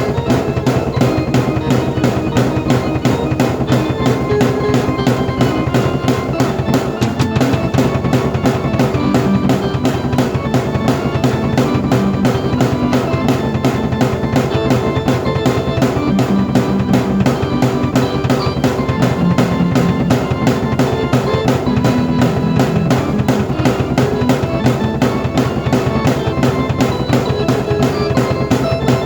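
Drum kit and keyboard playing together: a steady, fast drum beat with bass drum and snare, over sustained keyboard notes and chords.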